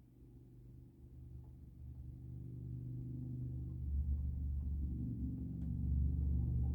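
Low rumble of wind buffeting a skylight, swelling about two seconds in and staying strong, with a few faint light taps.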